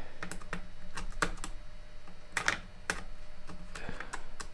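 Irregular light clicks and taps as a small hand screwdriver and its screws are fitted into the cordless screwdriver's housing to close it up.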